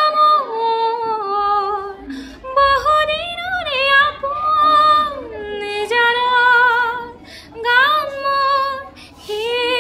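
A young woman singing a song unaccompanied, with long held notes that slide between pitches and waver with vibrato, in several phrases broken by short breaths.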